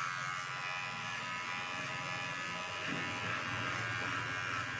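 Kemei 2600 cordless hair clipper running with a steady, even hum as it cuts short hair up the side of a head.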